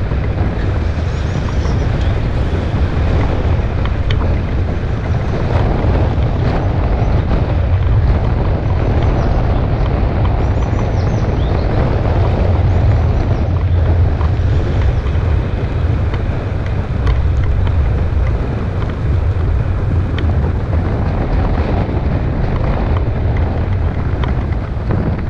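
Loud, steady wind rumble buffeting an action camera's microphone while moving along a road, with an even rushing noise over it.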